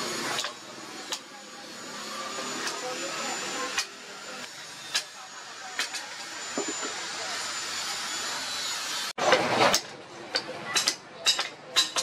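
Hammer blows on a leaf-spring steel cleaver blank on a stump anvil: a few scattered strikes over a steady hiss. After a sudden cut about nine seconds in come a brief loud rush of noise and a quick run of strikes on the glowing hot steel.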